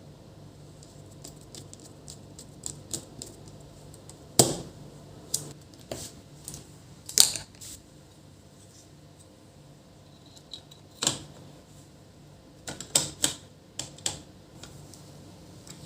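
Irregular clicks and knocks of small plastic laptop parts, screws and a screwdriver being handled while a replacement speaker is fitted into the opened laptop, with a few sharper knocks about four and seven seconds in and a quick cluster near the end.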